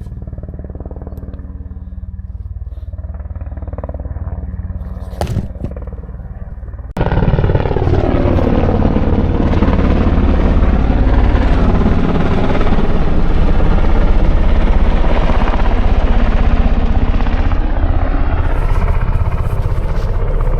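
Air ambulance helicopter flying low overhead: a muffled rotor and engine rumble that jumps suddenly in loudness about seven seconds in, then a loud pass with the pitch sliding, easing off near the end.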